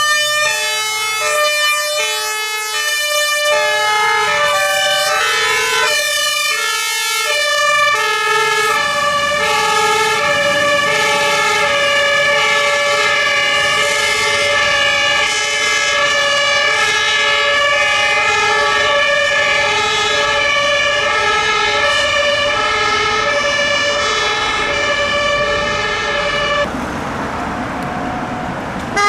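Several fire-engine two-tone sirens sound together, their alternating high and low notes overlapping out of step. They cut off suddenly near the end, leaving vehicle engine noise.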